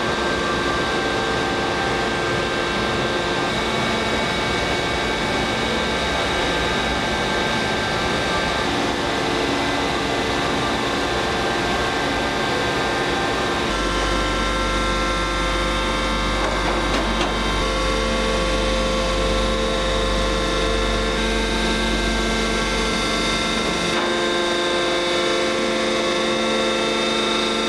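Forging machinery running: a steady mechanical hum with several held tones and no distinct hammer blows. The mix of tones shifts about 14 seconds in and again near 24 seconds.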